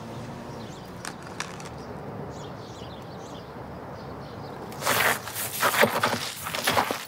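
Glass shattering and crashing in a quick run of loud smashes, starting about two-thirds of the way in, after a quiet outdoor background with a few faint bird chirps.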